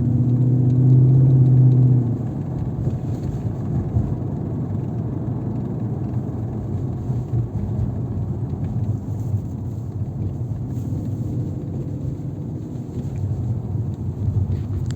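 Car running with a low, uneven rumble. A louder steady drone for the first two seconds drops off about two seconds in. The owner suspects the rattle in the noise comes from the drive shaft.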